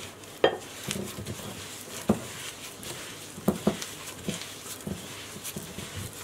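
Gloved hand mixing soft butter with brown and white sugar in a glass bowl by hand: a low squishing and rustling of the disposable plastic glove, broken by several sharp, irregular clicks and knocks against the glass.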